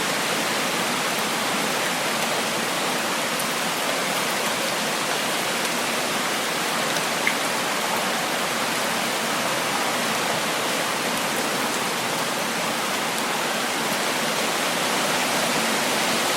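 Extremely heavy rain pouring down steadily, a dense, even hiss without letup, with one brief tap standing out about seven seconds in.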